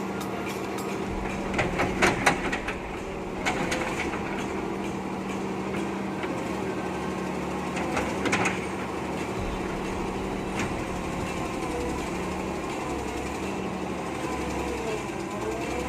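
Hitachi UH07 hydraulic excavator's diesel engine running steadily, with a few loud metallic clanks about two seconds in, again at three and a half seconds, and near eight seconds. The machine struggles to push soil, which the crew puts down to its age.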